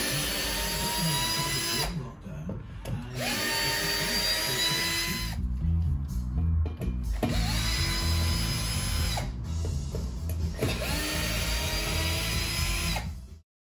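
Cordless drill-driver backing out the screws of old radiator wall brackets in four runs of about two seconds each, the motor pitch rising quickly at each start and then holding steady. Background music with a low pulsing beat plays underneath.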